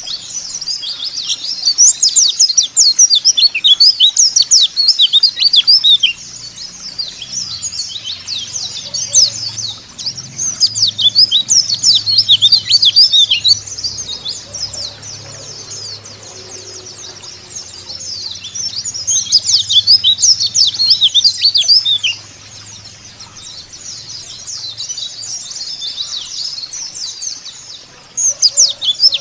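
White-eye (pleci) song: rapid, high twittering chirps that come in loud bouts of a few seconds, with softer chatter between them. This is lure song of the kind played to get caged white-eyes to start singing.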